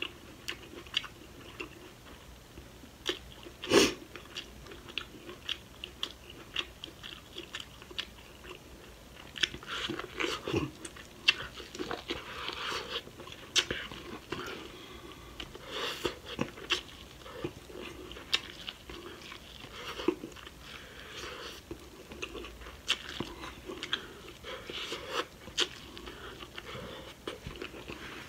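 Close-miked eating: a person biting kernels off a cob of boiled corn and chewing, with irregular wet mouth clicks and crunches.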